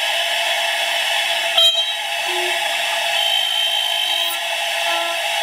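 CNC router spindle running at speed with a steady high whine as its small bit cuts the wooden workpiece, with short tones that come and go and a sharp knock about a second and a half in.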